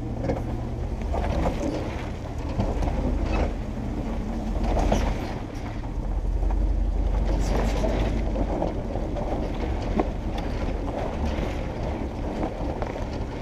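Jeep Wrangler TJ crawling over loose rock: the engine runs low and steady while the tyres grind over stones, with scattered knocks and rattles from the body and suspension.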